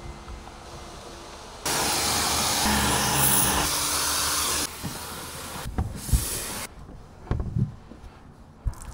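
Hand-held trigger spray gun blasting at the tailgate seal in a loud, steady hiss for about three seconds, then a second, shorter burst. A few knocks and thuds follow near the end.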